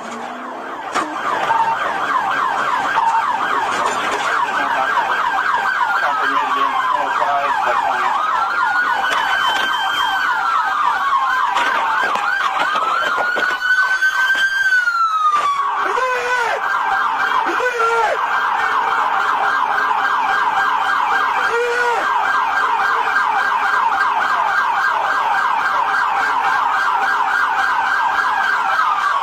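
Several police sirens sounding at once: a rapid yelp cycling without a break, with a slower rising-and-falling wail over it.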